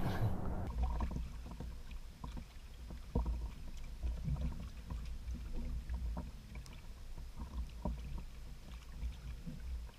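Faint low rumble with scattered light knocks and clicks from a kayak and its fishing gear during a rod-and-reel fight with a tarpon.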